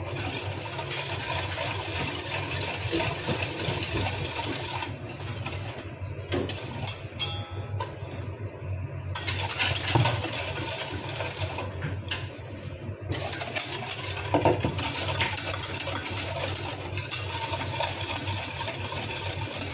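Wire balloon whisk beating egg and oil in a stainless steel mixing bowl: fast, continuous metal clinking and scraping against the bowl, easing off twice for a few seconds.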